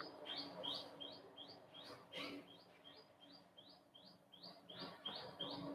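A bird chirping over and over: faint, short high chirps at an even pace of about three a second.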